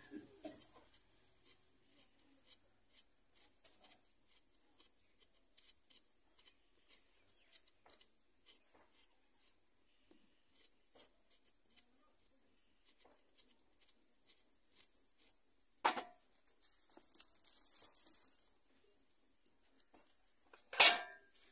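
A run of faint small clicks, about two or three a second, with a sharp knock about sixteen seconds in, a short rustling scrape after it, and a louder knock near the end.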